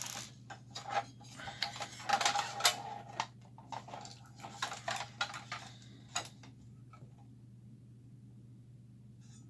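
Hand-work clatter on a workbench: irregular clicks and taps of tools and small parts being handled, thickest about two to three seconds in and dying out after about six seconds, over a steady low hum.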